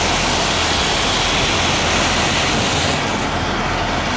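Nebula-I solid rocket motor, burning aluminium and ammonium-nitrate propellant, firing on a static test stand with a loud, steady rushing noise. About three seconds in, the highest hiss drops away.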